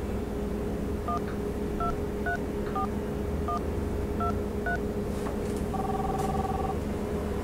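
Touch-tone phone keypad dialing a number: seven short dual-tone beeps at an uneven pace, followed a second later by one longer steady tone lasting about a second.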